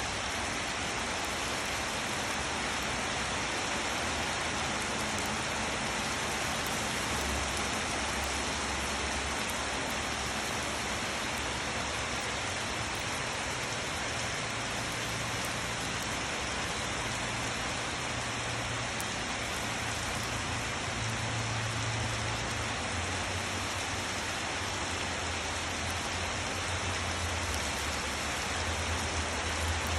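Steady rain falling and hitting surfaces, an even hiss throughout. Underneath it, a low rumble swells and fades several times.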